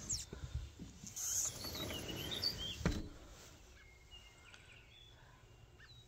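Songbirds chirping faintly, with a low rustle through the first half and a single sharp click about three seconds in.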